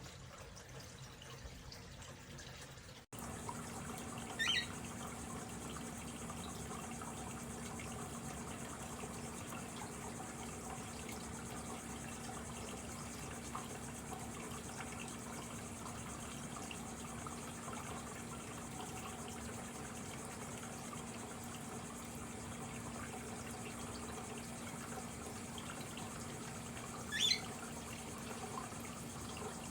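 Water from a Glenville cascading water fountain trickling and splashing steadily down its tiers. It cuts out briefly about three seconds in and returns a little louder. A bird chirps briefly twice, once early and once near the end.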